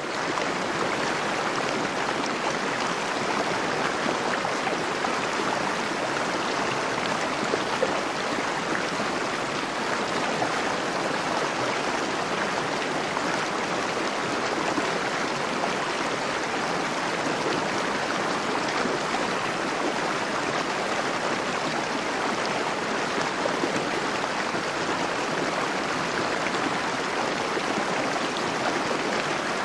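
Steady rushing of a fast-flowing river current, an even unbroken water noise.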